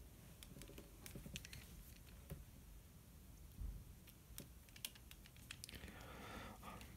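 Faint, scattered small clicks and taps of a precision screwdriver and a calculator's plastic casing and circuit board being handled while its screws are put back in.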